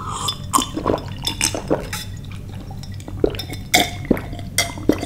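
A man drinking from a glass bottle: liquid glugging in the bottle and gulps as he swallows, in a string of short, irregular sounds.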